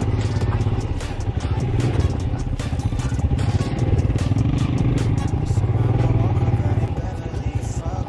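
Royal Enfield Himalayan's single-cylinder engine running steadily while riding a rough dirt track, with frequent short rattles and knocks from the bike over the bumps.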